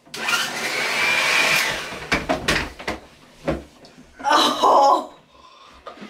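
Handheld hair dryer switched on at full blast, running with a steady whine for about two seconds while it blows out a load of baby powder, then stopping. Handling knocks follow, and about four seconds in there is a short loud outburst of a woman's voice.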